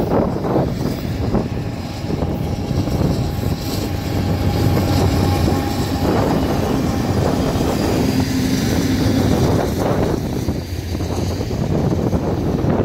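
Union Pacific freight train's diesel locomotives running as they pass close by, with a steady low engine hum strongest mid-way, followed by freight cars rolling past on the rails.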